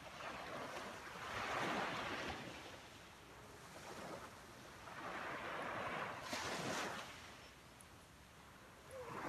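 Small sea waves washing up a sandy beach, a soft hissing surge that swells and fades twice, the second with a sharper hiss of breaking surf about six and a half seconds in.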